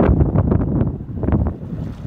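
Wind buffeting the microphone: a loud, rough low rumble with crackles, easing a little near the end.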